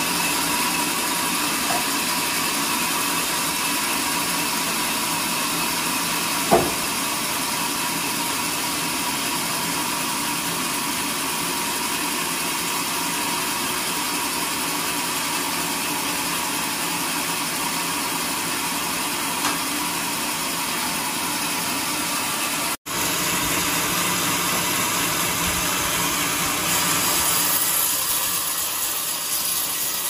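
Sawmill band saw and its drive machinery running steadily, with one sharp knock about six and a half seconds in.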